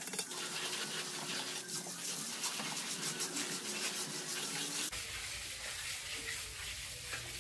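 Steel mason's trowel scraping and spreading wet cement mortar along the top of a concrete hollow-block wall, in repeated short gritty strokes.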